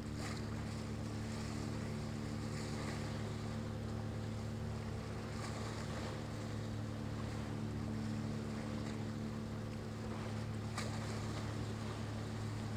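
A ship's diesel engine running steadily across the water: a low, even hum with several overtones, under a wash of wind and waves.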